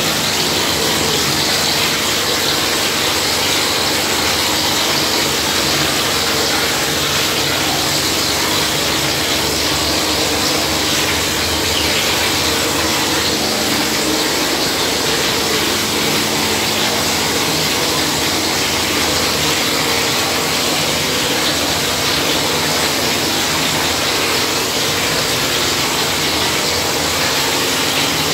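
Machine plastering with a gypsum plaster spraying machine: a steady, loud hiss of compressed air and plaster jetting from the spray nozzle, with a low hum from the machine under it.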